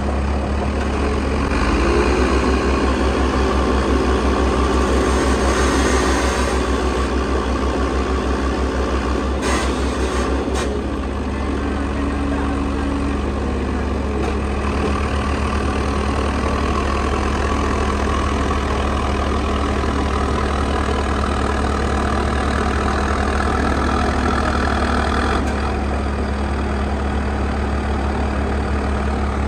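Heavy diesel machinery engines running under load: a steady, deep engine drone, a little louder for a few seconds near the start.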